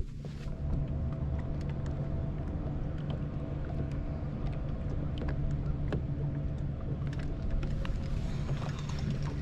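A steady low motor hum with several even tones, with scattered light clicks over it.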